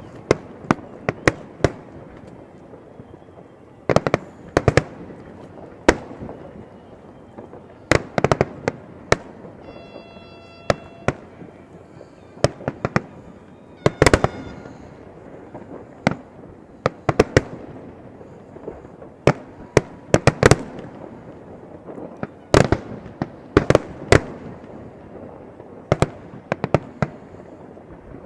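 Fireworks display: aerial shells bursting in sharp, irregular bangs, often several in quick succession, with a brief high tone sounding about ten seconds in.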